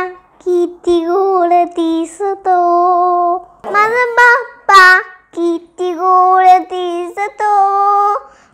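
A young girl singing solo in short phrases of held, steady notes with brief breaks between them, no accompaniment heard.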